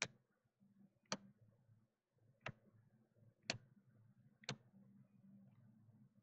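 Stack of Topps baseball cards being flipped through by hand: five sharp clicks, about one a second, as each card is snapped off the front and moved to the back of the stack. A faint low hum runs underneath.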